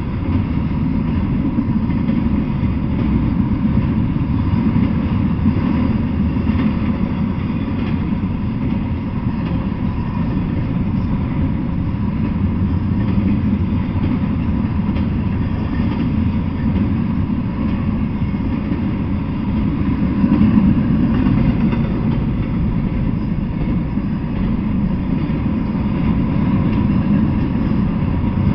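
Double-stack intermodal container freight train, its loaded well cars rolling past in a steady, unbroken rumble.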